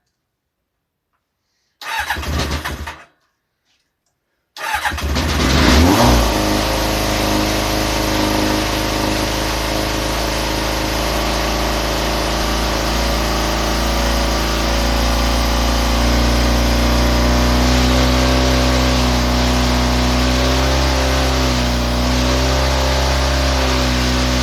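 Engine with a freshly refitted carburettor cranking in a short burst, then cranking again and catching just before six seconds in. It settles into a steady idle.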